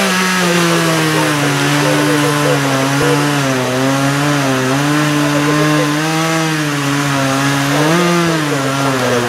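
Gas chainsaw running at high speed as it cuts through the limbs of a fallen pine, its engine pitch wavering up and down as the chain loads and frees in the wood, with a brief rise in pitch about eight seconds in.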